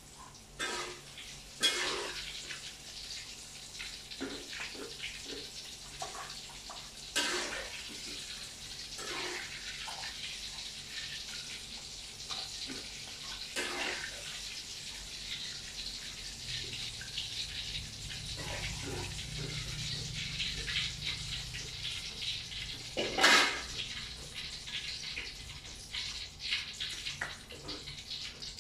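Water running and splashing into a container, with a few sharp knocks, the loudest near the end. A low hum comes in for several seconds in the second half.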